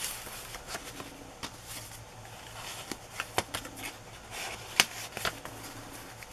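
Paper rustling and light scattered clicks and taps as cut-out paper pieces and the pages of a handmade junk journal are handled, with one sharper click about three-quarters through.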